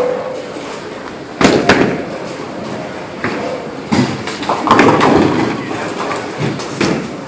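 Bowling alley: a bowling ball lands on the lane with a loud thud about a second and a half in and rolls off, and about three seconds later pins crash in a cluster of loud knocks, in a large echoing hall.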